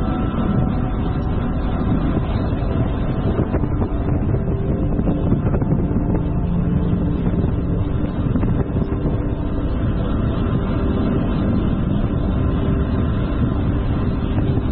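Steady wind noise on the microphone of a bicycle-mounted GoPro Hero 7 while riding, with a constant low rumble and no breaks.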